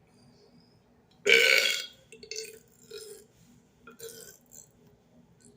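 A man burps loudly once, about a second in, a single burp lasting about half a second. A few much quieter short throat sounds follow.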